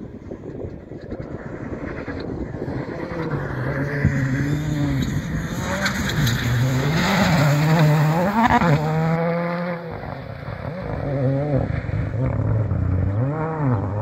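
Ford Fiesta rally car's engine revving hard and falling back repeatedly, the pitch swinging up and down through the gears as it drives a gravel stage. It is loudest as it passes close, with a hiss of gravel and tyres, about halfway through, then revs on again after a brief drop.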